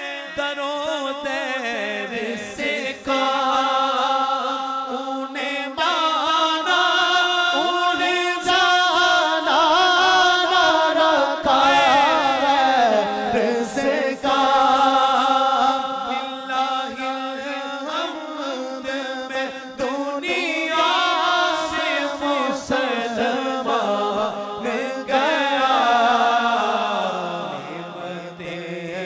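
Male voices chanting a naat unaccompanied through a PA system: a lead voice draws out long, wavering melodic notes while a second voice holds a steadier low note underneath.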